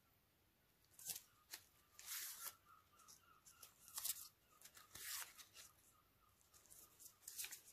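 Paper-and-foil wrappers of small stick-gum packets crinkling and rustling as they are handled, in several short bursts.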